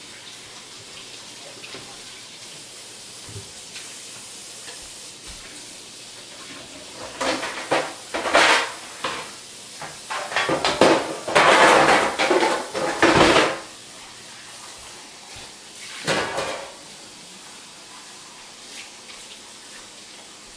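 Kitchen dishes and utensils clinking and clattering in a few separate bursts, the longest running for about three seconds midway through, over a steady low background hiss.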